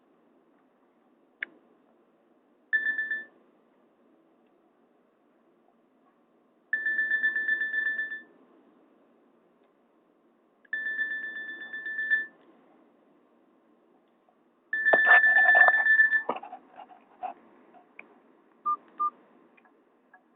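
Nokia 216 mobile phone playing a Nokia N78 ringtone through its small loudspeaker: a trilled, old-style telephone ring in bursts of about a second and a half, repeating every four seconds, with a low buzz under each burst and the last one loudest. After the last ring come a few clicks and two short key beeps.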